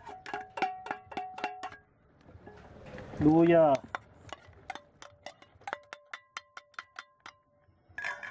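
A ladle tapping and scraping against a small stainless steel bowl, about four or five quick clinks a second, each with a short metallic ring. After a pause, a second run of lighter clinks rings at a different pitch as another bowl is emptied into the pot.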